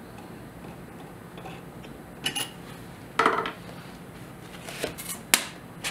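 Metal parts of a jeweller's ring-holding fixture on a ball vise clinking and knocking together as the ring holder is released and handled: a single click about two seconds in, another about a second later, then a short cluster of clicks near the end.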